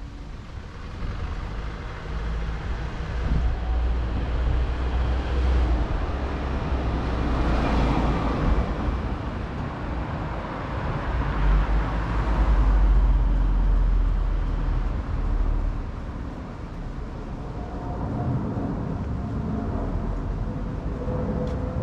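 City street traffic: a steady rumble of passing vehicles, with two swells as vehicles go by close, about a third of the way in and again just past the middle. Near the end a steady engine hum with a held tone comes in.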